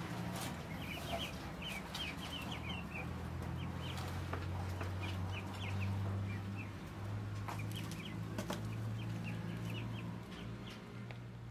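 Chickens clucking, with quick runs of short, high chirps throughout over a steady low hum.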